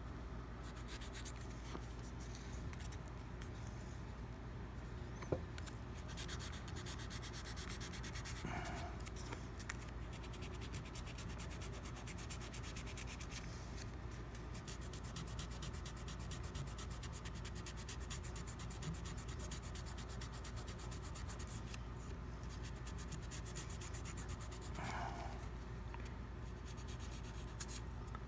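Hand sanding with 400-grit abrasive paper on the bite area of a hard rubber mouthpiece: a steady, fast rubbing rasp as the paper is worked back and forth to smooth out the coarser scratches in the repair. A single sharp click about five seconds in.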